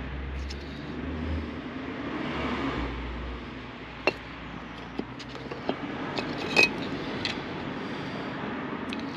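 Old rear brake pads handled and set down on paving stones: a few short clicks and clinks of their metal backing plates, the loudest about six and a half seconds in, over a steady background rumble like distant road traffic.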